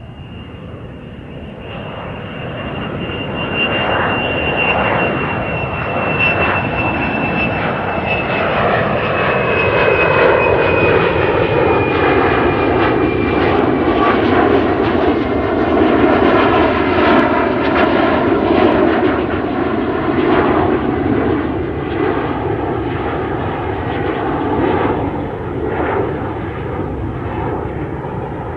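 Airplane engine noise building up over the first few seconds into a loud, steady roar, with a high whine that slowly drops in pitch over about the first half.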